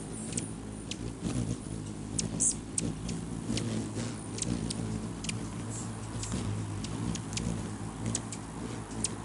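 Rufous hummingbirds giving short, sharp chip calls at irregular intervals, over the steady low hum of their wings as they hover and squabble for a perch.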